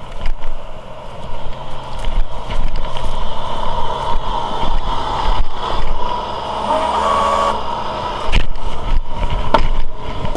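Tow truck engine idling with a steady low hum, under footsteps through grass and rustling close to the microphone; a single sharp knock about eight seconds in.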